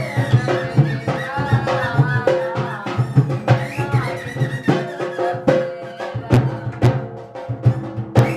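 Rajasthani folk music accompanying a kathputli puppet show: a hand drum beats a steady rhythm under sustained held notes, with a high note that swoops up and down at the start and again about four seconds in. Sharp drum strikes grow more frequent in the second half.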